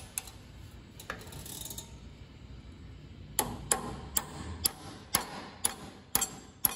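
Hammer tapping a steel pin into an Allis-Chalmers three-point lift linkage: a few light clicks as the pin is set by hand, then sharp ringing metal strikes about two a second from about halfway through.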